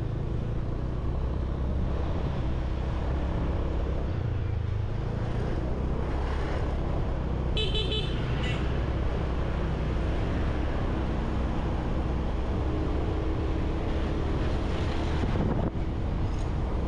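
Motorbike engine running steadily under road noise while riding in street traffic, with a vehicle horn beeping briefly twice a little past halfway.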